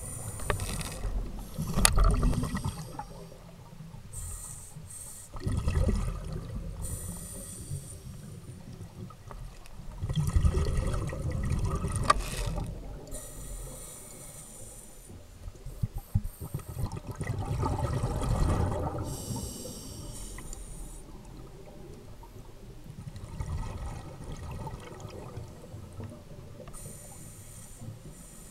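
A scuba diver breathing through a regulator, heard underwater. Rushes of exhaled bubbles come about every five or six seconds, with a high hiss between them.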